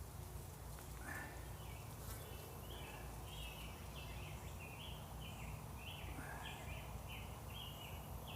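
A bird calling in the background: a quick run of short notes, each stepping in pitch, repeated about two or three times a second from about two seconds in, over a steady low rumble.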